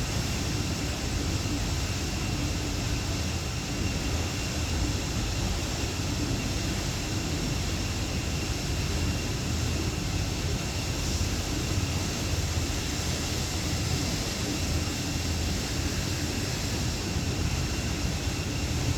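Steady rumble and rush of an electric boat under way on the river, with a faint steady high whine above it.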